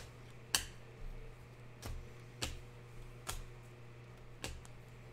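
Panini Prizm trading cards being flipped by hand through a stack, each card sliding off the next with a faint, sharp click roughly once a second, over a low steady hum.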